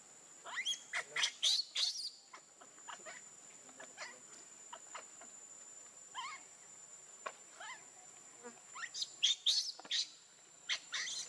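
Infant macaque crying: short, shrill squeals and screams in two bouts, about a second in and again near the end, with scattered single cries between, the distress calls of a hungry baby wanting its mother's milk. A steady high insect buzz runs underneath.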